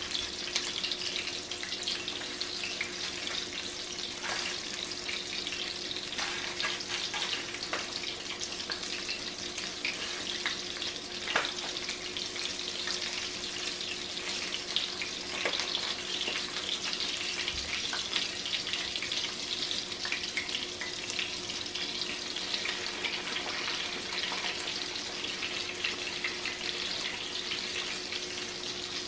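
Panko-breaded cod fillets shallow-frying in hot oil in a cast-iron skillet: a steady, dense crackling sizzle with scattered small pops.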